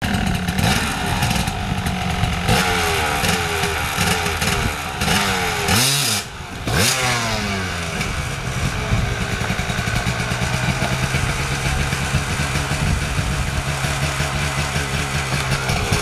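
Dirt bike engine revving in a string of quick throttle blips, dropping off briefly about six seconds in and revving straight back up, then running at a steady low speed.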